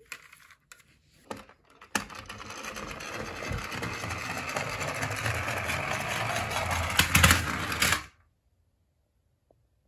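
Plastic toy car carrier truck rolling down a wooden ramp, its wheels and plastic body rattling steadily and getting a little louder. A few sharper knocks come about seven seconds in, and the sound stops suddenly about a second later.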